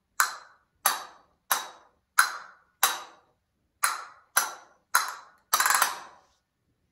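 Castanets worn on the thumbs clacked in single sharp strokes about every two-thirds of a second, a short pause after the fifth. The exercise is golpes and choques, strikes and clashes of the pairs against each other. Near the end comes a quick burst of several rapid clacks.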